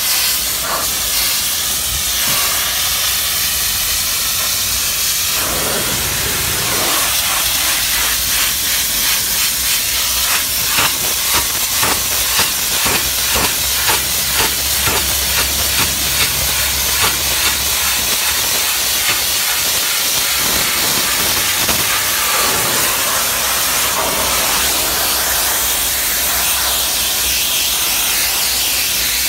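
Doff superheated steam cleaner's lance jetting steam against stone and brickwork: a steady, loud hiss, pulsing about twice a second through the middle stretch.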